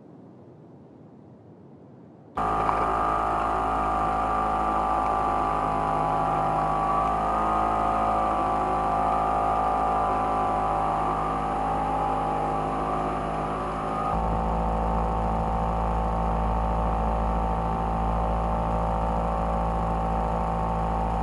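A boat's engine running steadily: a loud, even hum that cuts in suddenly about two seconds in, its tone shifting slightly a little after halfway through.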